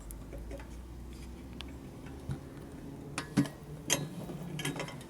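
Light clicks and taps of small metal chandelier parts being handled as a washer and nut are fitted behind a light, with a few sharper clicks about three and four seconds in.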